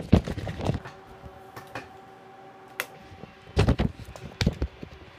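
Scattered clicks and knocks of equipment being handled on a workbench: a few near the start, a sharp click about three seconds in, then two clusters of knocks toward the end. A faint steady hum lies underneath.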